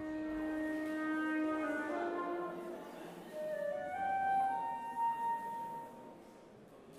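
Flute and cello playing slow contemporary chamber music: a long held low note, then the line steps upward to a bright held high note about five seconds in, and the sound fades near the end.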